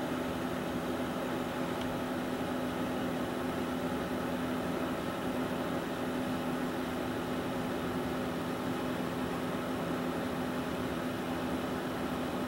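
A steady background hum with a constant low tone and an even hiss, unchanging throughout.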